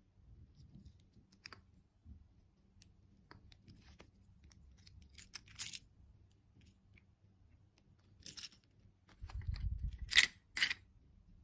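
Candy packaging being handled and torn open: scattered plastic crinkles and clicks, then a dull thud and two sharp snaps near the end.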